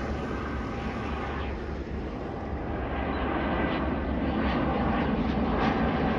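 Bombardier Global 6000 business jet's twin turbofan engines on approach with landing gear down, a steady jet rumble that grows louder as the plane comes nearer overhead.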